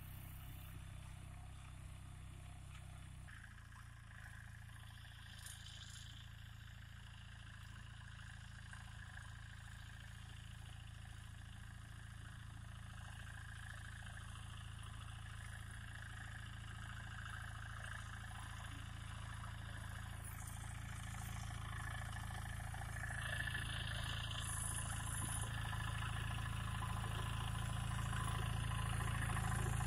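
Captain 250 DI mini tractor's diesel engine running steadily while it pulls a cultivator through the soil. It grows louder as the tractor approaches.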